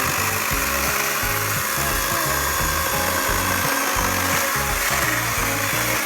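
Background music with a steady bass line over a Kobalt 80V brushless electric chainsaw cutting through wood.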